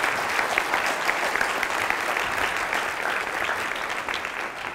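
Audience applauding: many hands clapping in a dense patter that dies down near the end.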